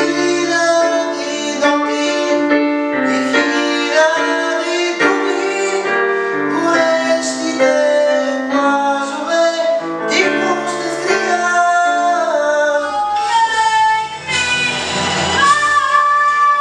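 A singing voice over piano accompaniment, moving through a melody in held notes. Near the end, a deeper bass line comes in, and after a brief dip the voice rises to a strong held note.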